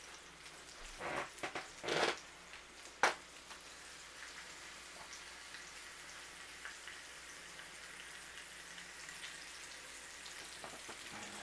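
Bacon sizzling in a cast iron skillet, a steady crackling hiss, with a few sharp knocks in the first three seconds as the pan is worked with a utensil.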